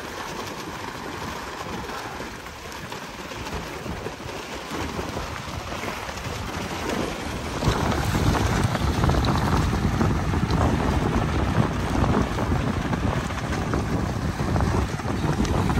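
Wind buffeting the microphone, growing louder about halfway through, over small waves lapping at the shore and water splashing around the legs of someone wading.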